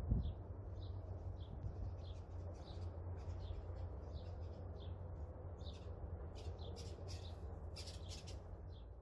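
Small birds chirping: many short calls that come thicker and louder near the end, over a steady low rumble.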